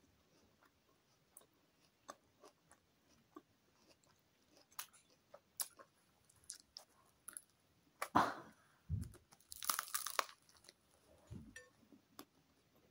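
Close-up mouth sounds of biting into and chewing a crusty chicken and lettuce baguette: small scattered clicks at first, then a loud crackle of crust about two-thirds of the way through, followed by chewing.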